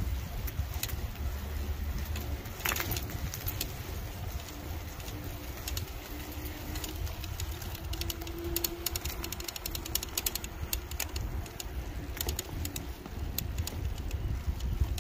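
Wind buffeting the microphone and rolling tyre noise while riding along a paved trail, a steady low rumble with scattered light clicks. A faint low tone comes and goes in the middle.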